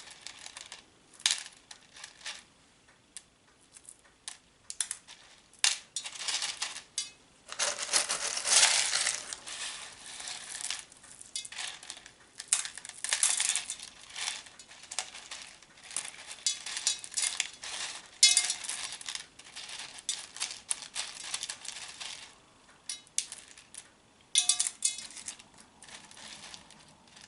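Small pebbles being dropped and spread as a top layer over leca clay pebbles in a plastic orchid pot: irregular clicking and rustling of stones on stones, with louder spells of handling now and then.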